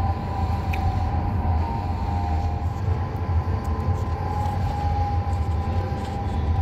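Interior running noise of a Stadler GTW Class 425.95 metre-gauge electric railcar under way: a steady low rumble from the wheels and track, with a high whine from the electric drive that drifts slightly in pitch.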